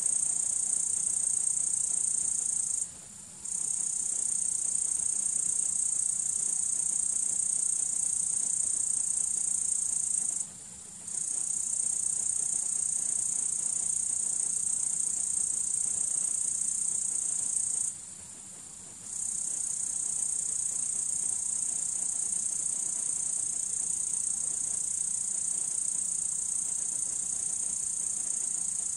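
Crickets trilling in a steady, high-pitched chorus that breaks off abruptly three times for under a second before resuming.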